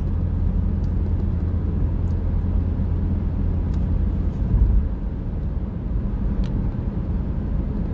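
Steady low rumble of a car on the move: engine and road noise heard from inside the cabin, swelling briefly about four and a half seconds in.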